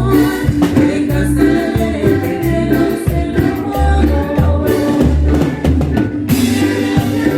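Live cumbia band playing: a stepping bass line under steady drum and percussion hits, with sustained melody notes above.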